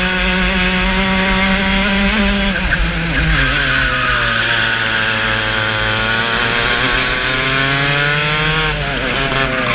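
Racing kart engine at speed, heard onboard. Its pitch falls as the engine slows about two and a half seconds in, climbs steadily for about five seconds as the kart accelerates, then drops sharply near the end.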